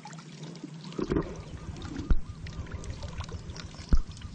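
Water sloshing and pouring as a collapsible bucket is worked in a shallow muddy channel, with three dull knocks, about one, two and four seconds in.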